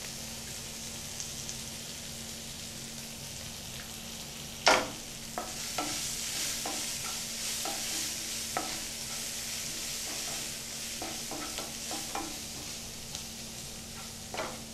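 Onion and tomato masala frying in a pan with a steady sizzle. From about a third of the way in, a wooden spatula knocks and scrapes against the pan in a run of short strokes as the mixture is stirred.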